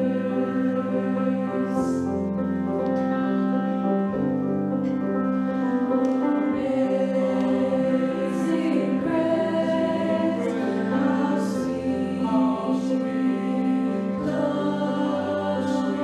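Mixed high school choir singing in slow, sustained chords that change every second or two.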